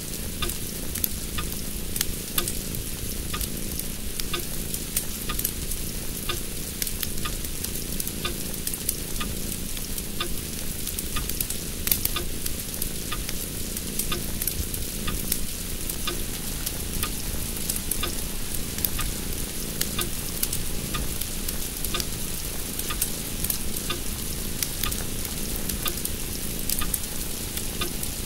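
Steady crackling hiss with frequent small clicks, unchanging throughout.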